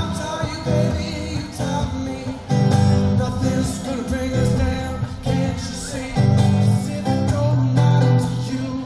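Live acoustic guitar strummed by a solo performer, with a male voice singing along.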